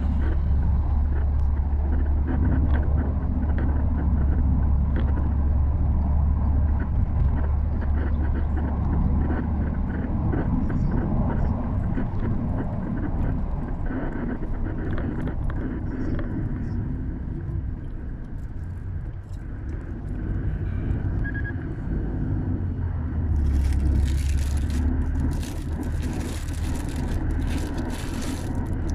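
Street ambience: a steady low rumble of road traffic mixed with wind on the phone's microphone, with a louder hissing stretch near the end.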